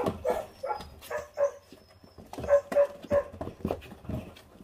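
Four-week-old puppies giving a string of short, high yips and barks, in two bunches, mixed with sharp clicks and knocks.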